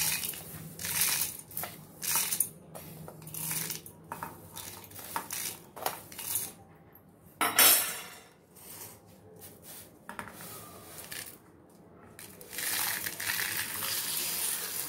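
Dry roasted lentils, curry leaves and red chillies are scooped with a metal slotted spoon from a steel plate into a steel mixer-grinder jar: a series of separate rattling scoops as the grains hit the jar and the spoon scrapes the plate. Near the end a longer continuous rattle as the plate is tipped and the rest is poured in.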